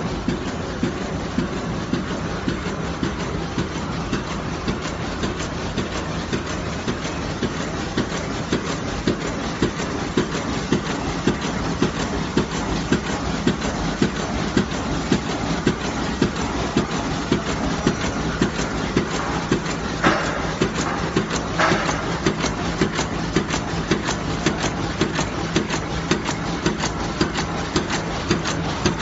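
Air cushion film machine running, a steady mechanical whir with a regular clicking beat as it inflates and seals the film into air pillows; two short hisses come about two-thirds of the way through.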